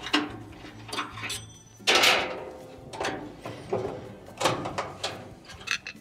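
Metal retaining clips on a dryer drive motor's mounting brackets being pried loose with a screwdriver: a few separate metallic clatters and scrapes, the loudest about two seconds in.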